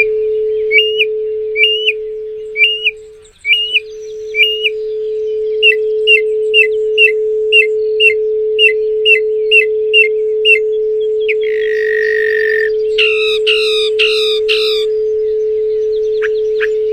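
A steady pure tone at 432 Hz hums without a break, except that it fades and briefly drops out about three seconds in. Over it a songbird sings: evenly spaced chirps, then a quicker series of notes, a buzzy note, then louder trilled phrases near the end.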